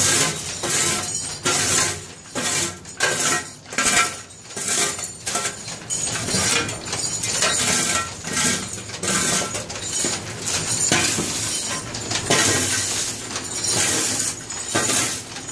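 Metal scrap and swarf clattering and clinking as it is scraped and raked out with a hand tool, in a dense, irregular run of strokes.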